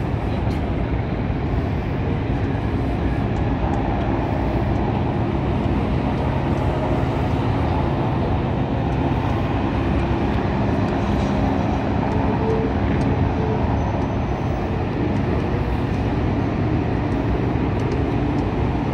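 Steady low mechanical rumble, with a few faint held tones through the middle.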